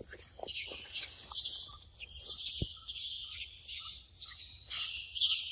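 Outdoor ambience of insects buzzing in a high, wavering chorus, with birds chirping; in the second half a short bird note repeats about twice a second.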